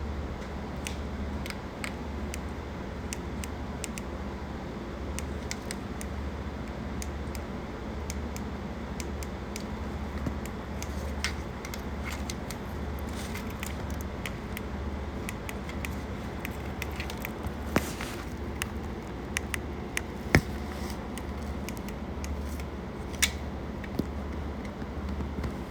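Small airbrush air compressor running with a steady low hum that throbs at an even, slow rhythm, with scattered light clicks and taps of handling; a few sharper taps stand out in the second half.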